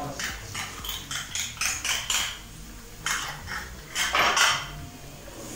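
Wooden spoon tapping and scraping against a small cup and a frying pan of pork stew: a run of irregular clicks and knocks, with a longer, louder noise about four seconds in.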